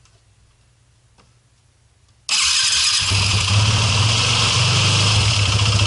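Yamaha WR450F's single-cylinder four-stroke engine starting about two seconds in, then running loud and steady at idle, run briefly so fresh oil circulates through the oil filter after an oil change.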